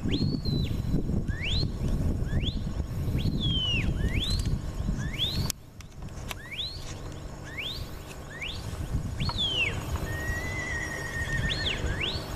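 A handler's stockdog whistle giving a string of commands to a working border collie: short rising whistles about one a second, some ending in a falling slur, with a warbled whistle near the end. Wind rumbles on the microphone and eases about five and a half seconds in.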